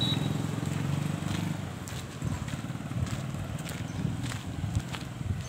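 A motor vehicle engine running steadily and fading away over the first second and a half, then scattered light clicks and taps.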